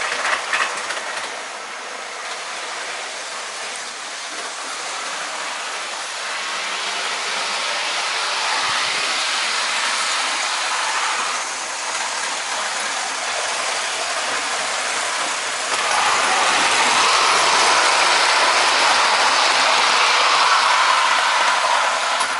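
OO gauge model train running on the layout track, most likely the Hornby Intercity 125 power car newly converted to a CD motor: a continuous whirring and rattling from the small motor, gears and wheels on the rails. It grows steadily louder and steps up sharply about sixteen seconds in as the train comes close.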